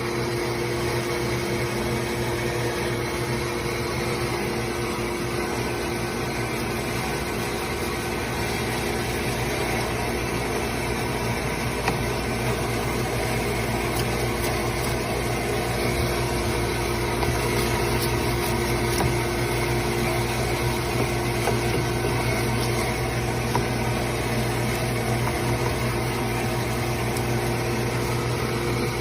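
Husqvarna two-stroke chainsaw engine running at a steady speed, fitted with a steel bar and chain on a spacer.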